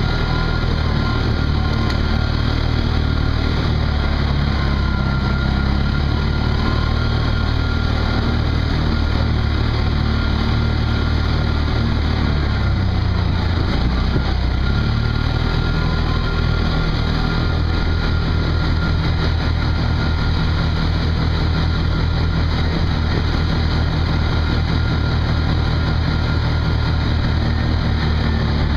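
Off-road vehicle engine running steadily while under way, the revs dropping and then picking up again about halfway through.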